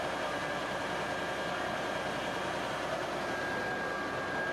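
Fire engines running as they drive slowly past on a street: a steady engine and road noise with a thin steady high tone over it.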